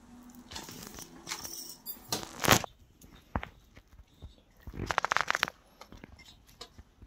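Wet squishing of a hand mashing and squeezing a soft bread-and-milk dough in a steel bowl. It comes as a few separate crackly squishes, the loudest about two and a half seconds in.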